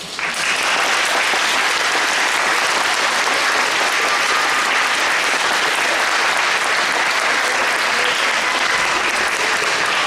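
Audience applauding, breaking out suddenly and holding steady and loud.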